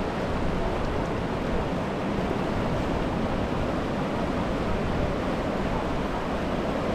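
Steady rushing of a fast river running over rocks, an even noise with no distinct events.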